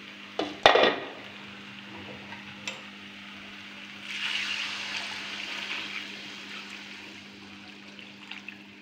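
Water poured into a hot kadai of masala-fried jackfruit, a hissing rush that starts about four seconds in and fades over the next few seconds. A sharp knock comes about a second in.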